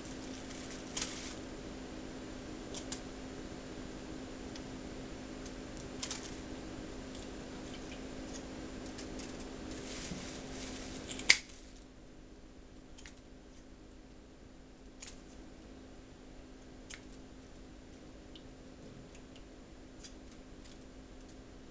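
Kitchen scissors snipping the toenails off raw chicken feet: separate sharp snips every few seconds, the loudest about halfway through. A steady low hum underneath stops at that point.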